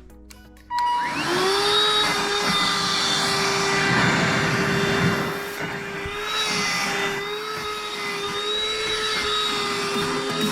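Kitfort KT-557 cordless handheld vacuum cleaner switched on about a second in: its motor whines up quickly to a steady high-pitched tone with a rush of suction air, vacuuming a sofa. It gets slightly quieter about five seconds in.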